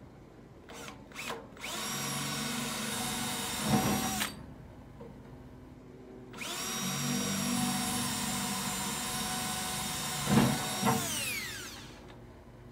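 Power drill boring holes through the steel lid of an offset smoker. The trigger is tapped twice briefly, then the drill makes two runs of steady motor whine, each with a short louder burst near its end. The second run winds down with falling pitch.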